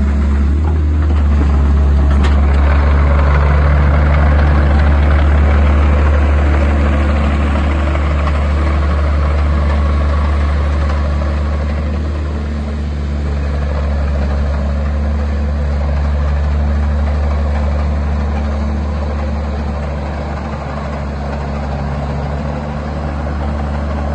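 JCB 8080 midi excavator's diesel engine running steadily as the machine travels on its rubber tracks, gradually getting quieter over the second half as it moves away.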